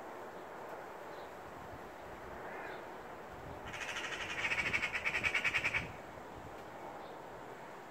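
Eurasian magpie giving its harsh chattering rattle, a rapid series of about eight notes a second lasting about two seconds, starting about four seconds in: the alarm chatter that magpies use to mob a cat.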